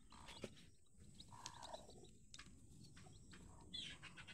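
Faint, scattered peeping of newly hatched chicks nestled under a broody hen, with a few soft clicks. It grows louder near the end.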